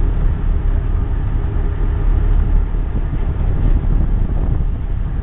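A steady, loud low rumble on a fishing boat's open deck at sea: wind buffeting the microphone over the drone of the boat's engine.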